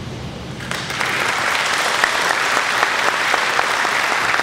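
Audience applauding, the clapping starting about a second in and holding steady.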